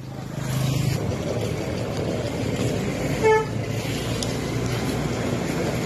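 Steady road and engine noise with one short vehicle horn toot about three seconds in.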